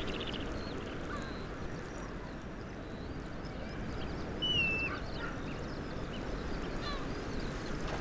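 Wild birds, most likely gulls, giving scattered short cries, with one clearer call that drops in pitch about halfway through, over a steady low background rush.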